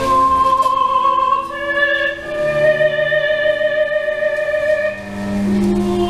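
Recorded music with long, slowly changing held notes.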